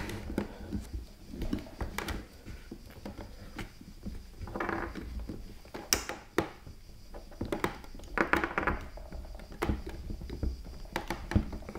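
Scattered small clicks and short scrapes of a screwdriver working a screw at the neck mount of an iMac G4's plastic dome, with the metal arm and plastic shell knocking as they are handled; a sharp click about six seconds in.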